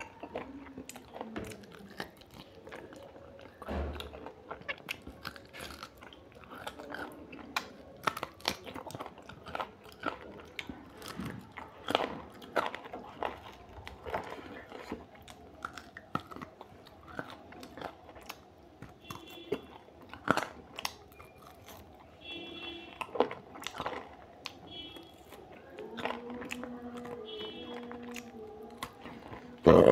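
A person eating mutton curry with rice and roti close to the microphone: irregular chewing, wet mouth clicks and crunching bites.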